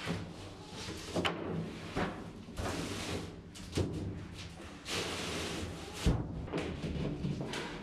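A large OSB board slid across timber crossbars and set into place: two long scrapes of board over wood, broken by several knocks of wood on wood, the loudest a little after six seconds in.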